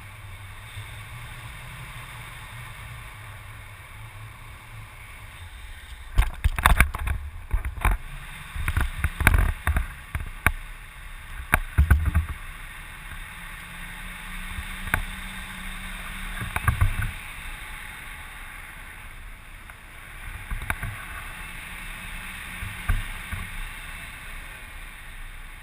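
Steady rush of wind on the microphone, broken by a run of loud knocks and bumps between about six and twelve seconds in, with a few more later.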